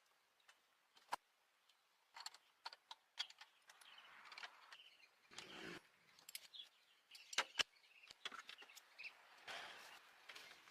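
Quiet ambience with scattered faint clicks and taps, and a short soft rustle about five seconds in.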